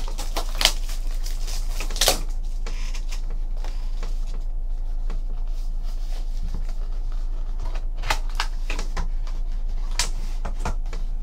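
A cardboard Panini Signatures trading-card box being opened and handled: scattered light clicks and scrapes of the lid and card stock, over a steady low hum.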